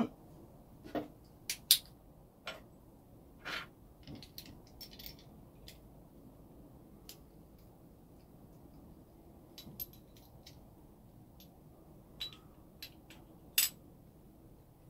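Scattered clicks, taps and small scrapes from handling a CO2 pellet pistol magazine as a CO2 capsule is fitted, with a couple of sharper clicks about two seconds in and near the end.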